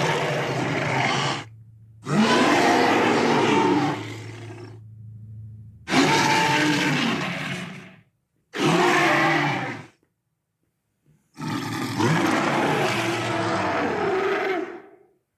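Designed dinosaur roars for a Carcharodontosaurus: five separate long, rough roars, each a second and a half to three seconds, with short silent breaks between them. A low steady hum runs under the first two and stops about six seconds in.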